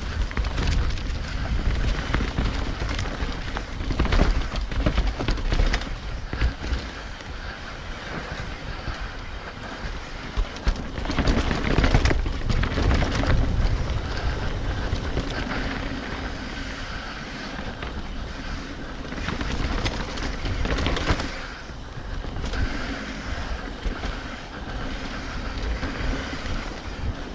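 Wind buffeting the microphone with tyres rolling over a dirt trail and the mountain bike rattling and knocking over bumps. It gets louder and rougher around four seconds in and again around eleven to thirteen seconds in.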